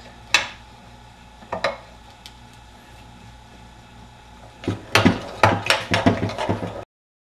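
Metal parts clinking against the open engine crankcase as they are handled: a couple of single clinks, then a quick run of clinks and clatter near the end.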